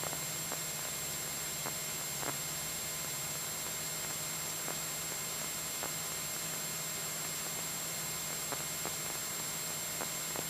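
Steady hiss over the low, even drone of a Cessna 172SP's four-cylinder engine and propeller in cruise, with a few faint clicks.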